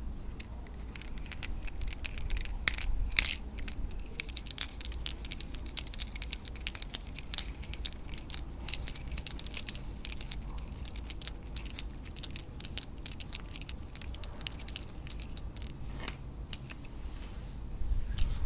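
Hands working on a mains plug and cord: a steady run of small, irregular clicks, ticks and scrapes from the plug parts and wires being handled.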